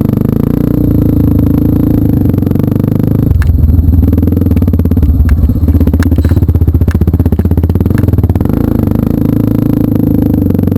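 Trail motorcycle engine running, heard close up. It runs steadily at first; about a third of the way in the note turns uneven, rising and falling, with scattered knocks and clatter.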